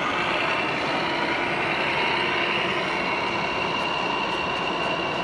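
1/14 scale radio-controlled truck driving past, a steady high whine from its drive, over the general noise of a busy hall.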